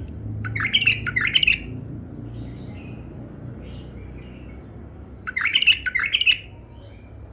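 Tame male bulbul singing: two loud bursts of quick, bubbling song notes, one near the start and one about five seconds in, with softer chirps between them.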